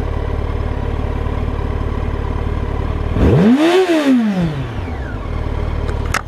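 Motorcycle engine idling, with the throttle blipped once about three seconds in: the revs rise and fall back to idle within about a second and a half. A couple of sharp clicks come near the end.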